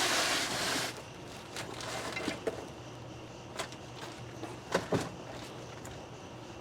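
A short rustling hiss, then scattered light knocks and clinks as drum-brake hardware parts are searched through and handled, over a steady low hum.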